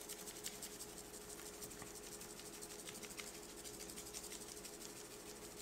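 Seasoning shaker being shaken in a rapid, faint rattle, the rub granules pattering onto an aluminium sheet pan, over a steady hum.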